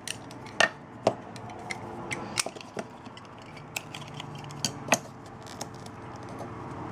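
Irregular small clicks, taps and scrapes of a tool and fingertips on the LG G5's small internal parts as its power button is pried out.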